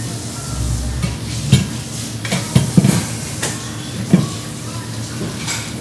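Bicycle wheel being handled and set into a metal truing stand: a dull low thud, then a run of irregular sharp clicks and knocks of metal on metal, over a steady hiss.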